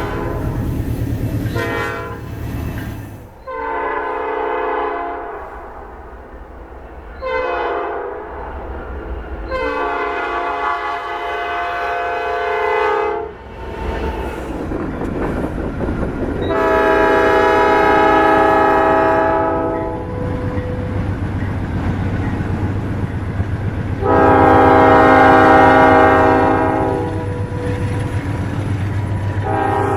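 Nathan Airchime P5 five-chime locomotive air horn sounding about six blasts, some short and several long, the longest about four seconds, with the train's running noise between them.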